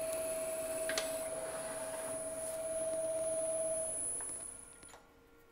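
Woodturning lathe running with a steady motor whine, then switched off about four seconds in, its pitch falling as it winds down to a stop. A short click about a second in.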